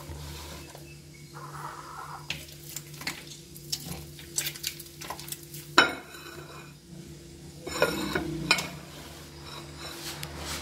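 Hands pulling and working soft, freshly risen bread dough in a plastic basin, tearing off pieces to shape into balls: irregular sticky squelches and small smacks, with one sharp knock about six seconds in.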